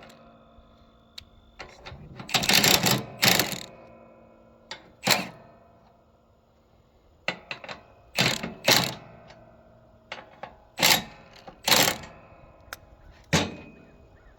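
About ten sharp metal clanks and knocks at irregular intervals, some coming in quick pairs, each leaving a short metallic ring: metal parts of a high-striker being struck and handled during repair.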